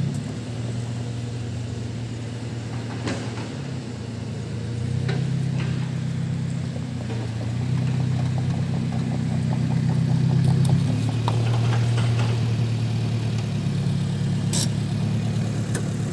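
Chainsaw engine running at high speed under load while ripping a log lengthwise into planks. Its pitch and loudness shift as the cut goes on, loudest around the middle.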